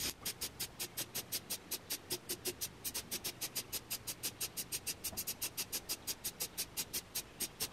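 Compressed air hissing from an air nozzle in a quick, even train of short puffs, about six or seven a second, blowing wet glaze across a fired pot.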